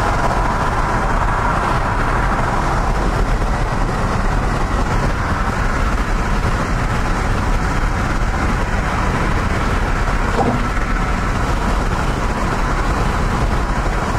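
Steady road noise of a car driving at highway speed, heard from inside the car.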